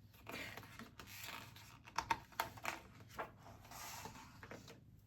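Soft rustling with a few light clicks or taps, the clicks bunched around two to three seconds in.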